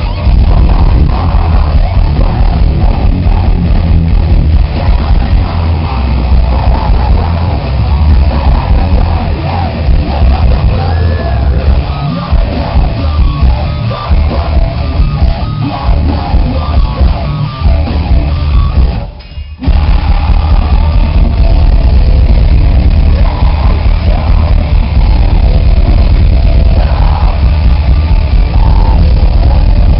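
Metalcore band playing live and very loud, with heavy guitars and keyboard. About two-thirds of the way through the music stops for a moment, then the full band comes back in.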